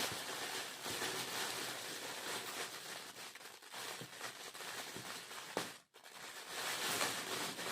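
Gift wrapping being rustled and torn by hand while a wrapped plate is unwrapped: a dense crackling and rustling with small clicks, breaking off briefly about six seconds in.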